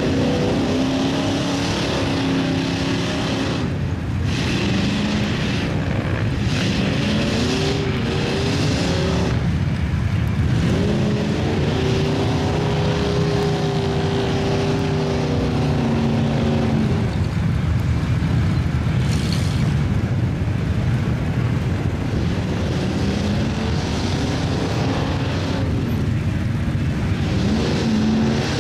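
Lifted mud trucks' engines revving up and down several times while driving and pulling in a mud pit, with one long stretch held at high revs in the middle.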